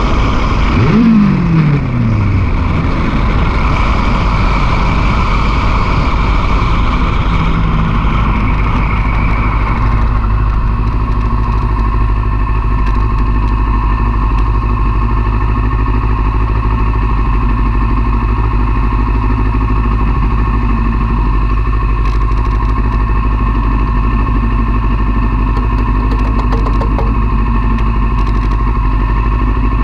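Sport motorcycle engine with its revs dropping sharply about a second in, while wind and road rush fades away over the first ten seconds as the bike slows to a stop. The engine then idles steadily.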